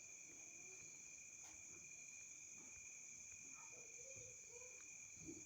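Near silence, with faint steady high-pitched tones in the background.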